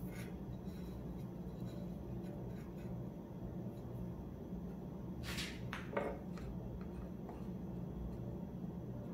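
Faint handling sounds of a steel rule and pencil on a plywood board during marking out: a short scrape about five seconds in and a light knock just after, over a steady low hum.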